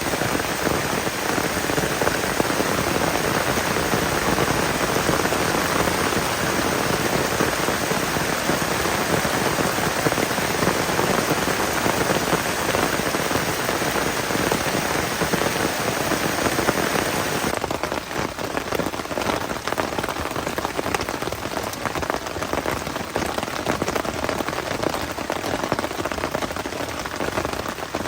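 Heavy rain pouring down on a tent, a dense steady hiss of drops. About two-thirds of the way through it turns slightly quieter, with separate drop hits standing out.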